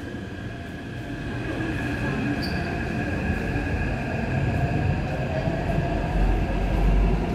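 Taipei Metro C371 steel-wheel metro train pulling out of the platform: a steady whine that rises slightly in pitch as it gathers speed, over a rumble of wheels on rail that swells about six seconds in.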